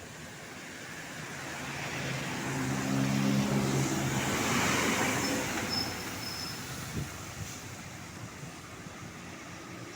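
A bus driving past: engine drone and road noise build up, peak about three to five seconds in, then fade away. No horn is sounded.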